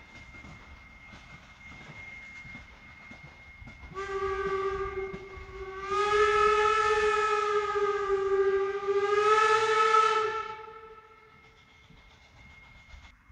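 Steam locomotive whistle blown in one long blast of about six seconds. It starts softer, swells to full strength about two seconds in, then fades away, heard over the faint sound of the distant train running.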